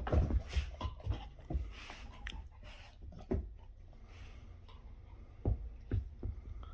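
Pit bull playing: a quick run of knocks and thumps over the first few seconds, then three more near the end.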